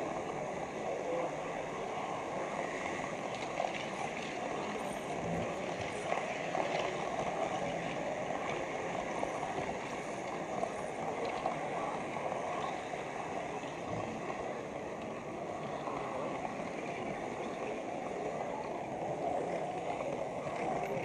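Steady rolling rumble of a model train running along the track with a camera wagon aboard, over the chatter of a crowd in a large hall.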